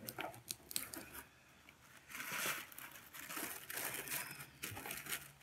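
A cardboard box and the brown wrapping paper inside it being handled as it is opened, rustling and crinkling in short scattered bursts with light clicks, loudest about two seconds in.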